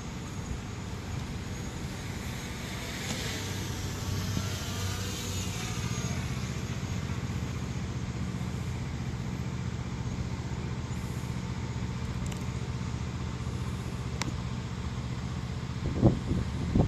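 Steady low engine hum of road traffic, with a vehicle passing about three to five seconds in. A few low thumps near the end.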